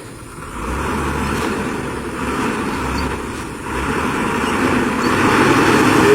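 Vehicle engine running, a noisy sound that grows louder toward the end.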